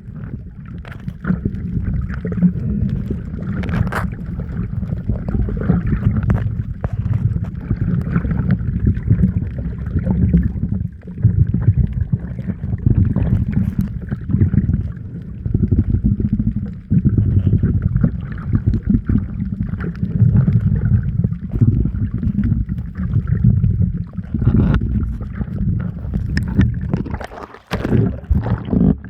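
Muffled, uneven low rumble of water moving around the camera, with occasional faint clicks and bubbling.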